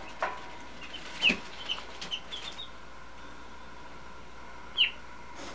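Duckling peeping: a scattering of short, high peeps, with two louder ones that slide downward in pitch about a second in and near the end. A light knock comes right at the start.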